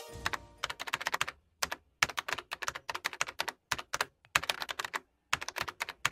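Computer keyboard typing: quick runs of sharp key clicks in short bursts with brief pauses between them. Over the first half second the last notes of a chime fade out underneath.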